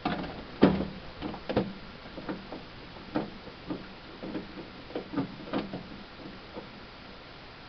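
Screwdriver working two screws out of an iMac G3's case: a run of irregular small clicks and taps that thin out near the end.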